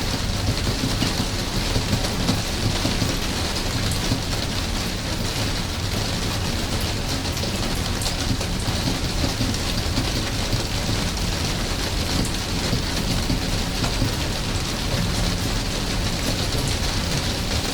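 Steady rain falling, an even hiss dotted with fine drop ticks, over a low continuous rumble.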